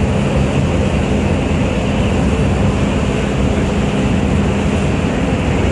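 Steady drone of a boat's engine under way, mixed with rushing wind and water noise.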